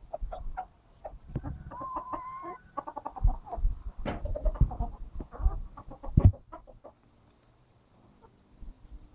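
Domestic chickens clucking in many short repeated notes, with one drawn-out call about two seconds in. Several loud thumps come in among the clucks, the loudest about six seconds in, and the clucking stops about seven seconds in.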